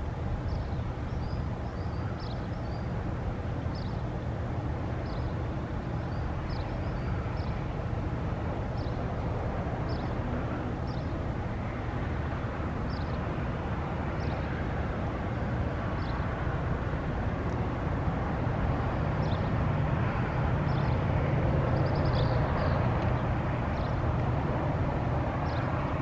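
Steady road-traffic rumble from a highway, swelling a little as vehicles pass in the second half, with small birds chirping repeatedly over it.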